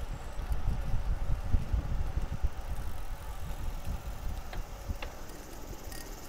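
Wind buffeting the microphone over the rumble of a road bike rolling along a paved path, strongest in the first few seconds, with two faint clicks about four and a half and five seconds in.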